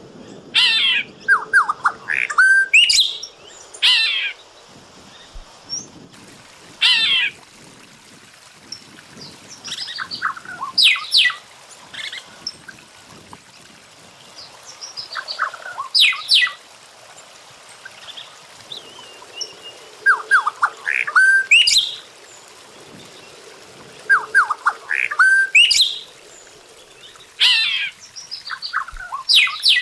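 Golden-winged cacique singing: short bursts of quick whistled notes and pitch sweeps, repeated every few seconds.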